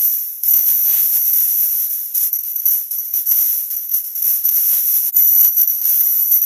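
A 'wah wah' sound effect sped up so many times that it has turned into a high, shimmering hiss, jingling like a tambourine, with rapid irregular crackles flickering through it.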